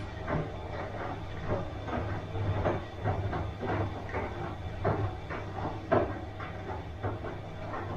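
Bosch washing machine running its wash: a steady low motor hum under irregular swishing strokes from the turning drum and laundry.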